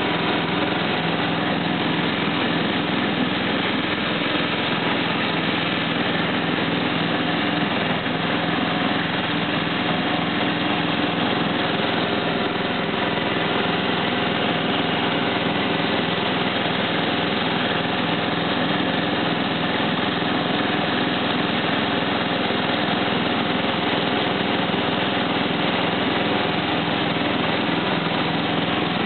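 Simplicity 4211 lawn tractor's engine running steadily at an even speed as the tractor drives across the lawn, heard close up from the seat.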